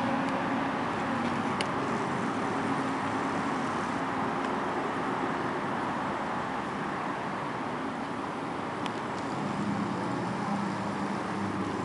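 Steady road traffic noise from passing cars, with a low engine hum coming up again near the end.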